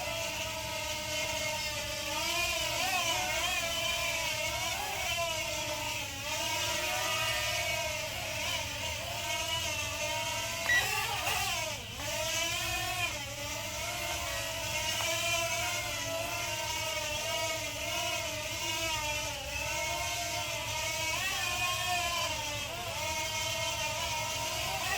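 JJRC JJ850 mini quadcopter's motors and propellers whining in flight, the pitch wavering up and down continuously as the throttle changes, with a brief drop and swoop about halfway through.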